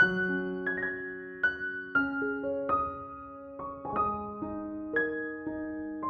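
Soft solo piano background music, single notes and chords struck about every half second and left to ring.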